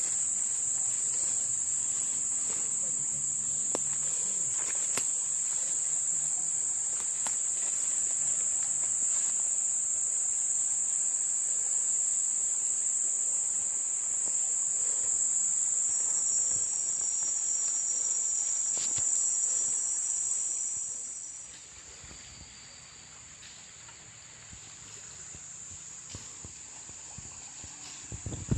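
Steady high-pitched drone of an insect chorus that drops to a quieter level about 21 seconds in.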